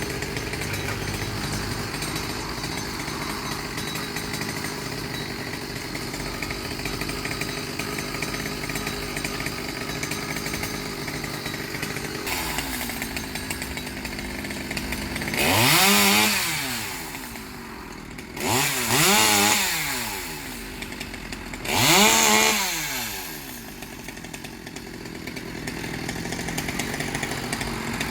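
Two-stroke engine of a petrol tree-trimming tool running steadily, then revved up three times about three seconds apart. Each rev rises and falls in pitch and is the loudest part of the sound, after which the engine settles back to a steady run.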